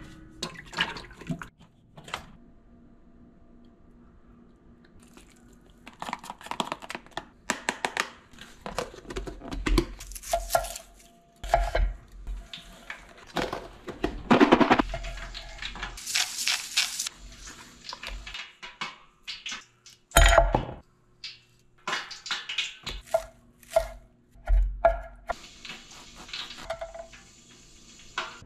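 Kitchen prep handling: a stainless steel pot, a plastic food container, a fork and dishes clattering and clinking on a stove and countertop. The knocks come in scattered bursts, with a quiet spell of a few seconds after the first ones.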